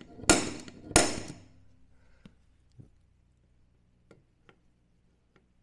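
Centre punch being struck on a metal plate to mark hole centres for drilling: two sharp metallic strikes with a short ring in the first second and a half, then several faint light taps.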